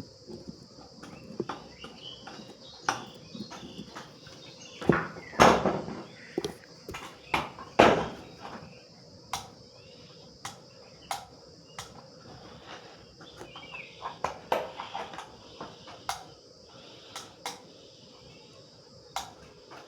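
Irregular clicks and knocks of small hard objects being handled, with a few louder knocks around the middle, over a steady high-pitched hiss.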